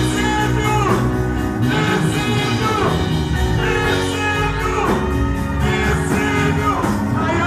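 Music: a voice singing over instrumental backing with steady bass.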